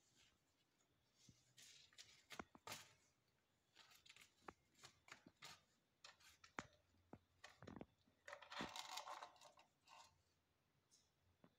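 Faint scuffling of kittens at play: scattered light taps and clicks with short rustles, and a longer rustle of plastic or cardboard a little past the middle.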